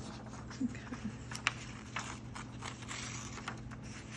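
Dry, brittle pages of an old dictionary rustling and crinkling as they are leafed through and handled, with scattered small clicks and a denser stretch of paper noise in the second half.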